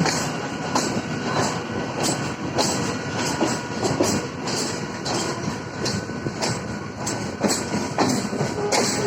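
Mumbai suburban electric local train running between stations, heard from inside the coach: a steady rumble with the wheels knocking over rail joints about twice a second.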